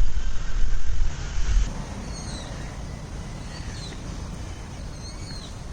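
A loud low rumble for about the first second and a half, then it drops away and small birds chirp: three brief bouts of short, high, falling notes.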